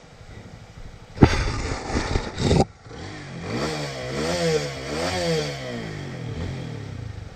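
Motorcycle engine revving up and down over and over, about once a second, as it is ridden through a stream crossing. Before the revving, a loud rushing noise starts suddenly and lasts about a second and a half.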